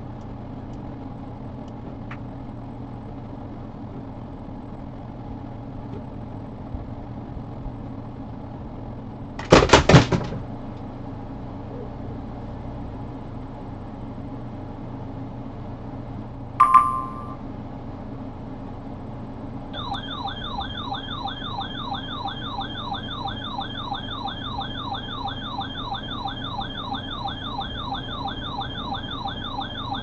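Weather alert radio's warbling siren-type alarm, a tone sweeping rapidly up and down several times a second, sounding the start of a severe thunderstorm warning. Before it come a short loud burst of noise and a brief electronic beep, over a steady hum.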